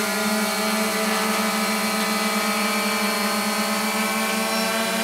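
Multirotor drone's electric motors and propellers humming steadily as it hovers in loiter, a buzzing drone made of several tones at once.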